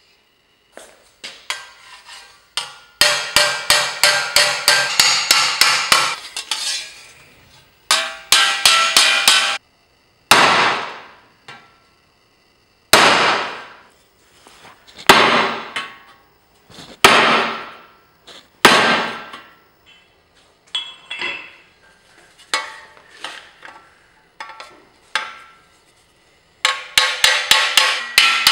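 Hammer striking a chisel on sheet steel, cutting armour plate along a marked line. Runs of quick light taps, about seven a second, alternate with single heavy blows that ring on in the metal.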